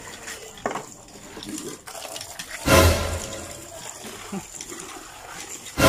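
A loud animal-like roar twice, once about three seconds in and again at the very end. Between the roars water splashes and pours into a plastic basin.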